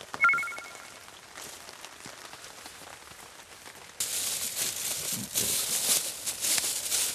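A short ringing chime, then faint crackling of a campfire. About four seconds in, a sudden louder rustle and crinkle of plastic: 1 kg plastic bags of salt being handled and set down.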